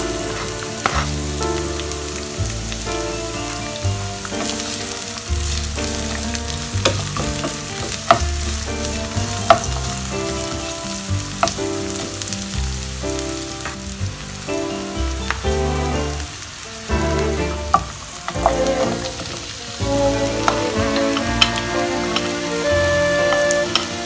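Diced onion and garlic sizzling in hot oil in a non-stick frying pan, stirred with a wooden spatula that knocks and scrapes against the pan now and then. Music with a steady bass line plays underneath.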